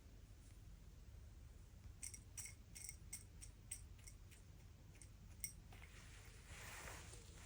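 A young feral pigeon pecking at snacks, its beak making a quick run of about a dozen faint, sharp clicks from about two seconds in, followed by a soft rustle near the end.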